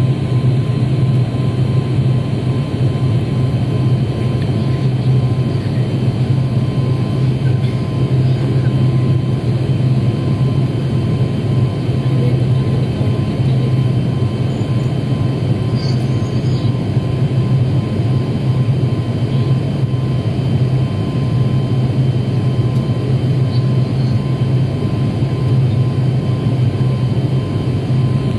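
Cabin noise of a high-wing airliner with its engines running steadily while it stands almost still: an even drone with a strong low hum and a thin steady whine above it.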